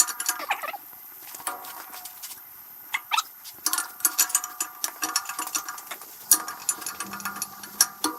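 Metal engine parts clinking, scraping and briefly ringing as they are worked out of a 6.0-litre LS engine block, with many sharp clicks throughout.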